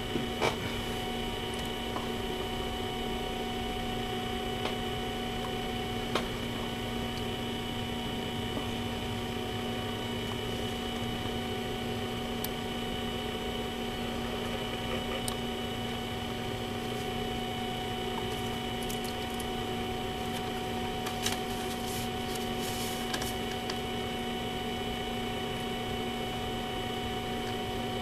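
Steady electrical hum and whine, several fixed tones held without change, with a few faint clicks.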